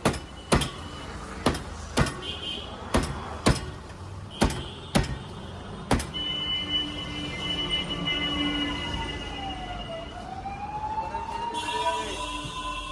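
About ten sharp knocks in quick, uneven succession. After them come a steady high whistling tone and a wailing tone that falls and then rises, like a siren, over street noise.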